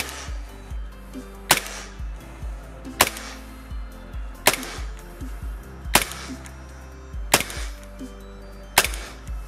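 Gas blowback airsoft pistol, a VFC-made Umarex Smith & Wesson M&P9 running on 145 PSI gas, firing single shots into a chronograph: seven sharp shots with the slide cycling, one about every second and a half. Its velocity drops shot by shot, the sign of the magazine's gas charge weakening.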